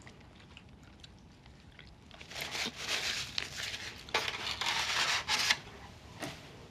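Paper food wrapping crinkling and rustling in irregular bursts for about three seconds, then one short rustle near the end.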